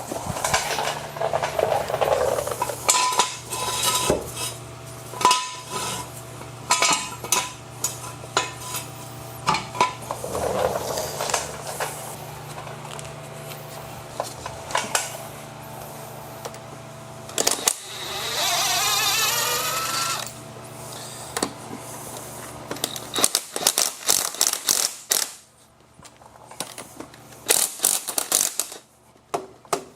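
Metal tools and jacking gear clanking and clinking in irregular knocks, over a steady low hum that stops about three-quarters of the way through. A whirring burst lasts about two seconds past the middle.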